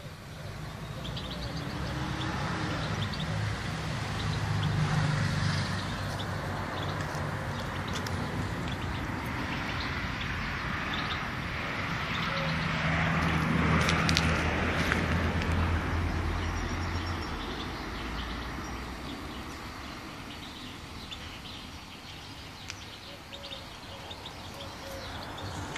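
Motor vehicles passing, their engine and road noise swelling up and fading away twice, with faint bird chirps.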